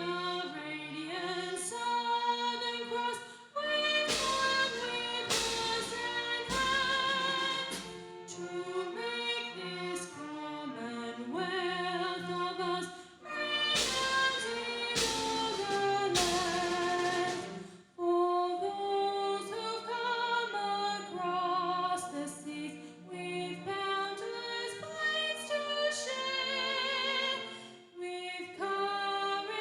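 Singing with instrumental accompaniment, the sung notes held with vibrato, and two groups of loud drum or cymbal strokes about four seconds in and again about fourteen seconds in.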